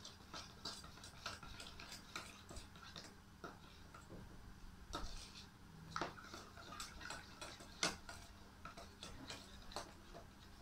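A spoon tapping and scraping against a bowl in irregular light clicks while mixing a flour-and-water slime, with a few sharper knocks.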